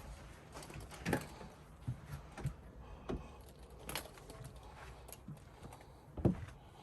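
Irregular sharp clicks and knocks, roughly one a second, like things being handled and set down, over a low background rumble.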